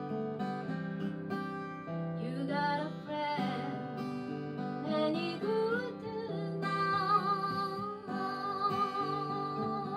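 A woman sings to her own strummed acoustic guitar. Her voice comes in about two seconds in over the steady chords and holds a long, wavering note near the end.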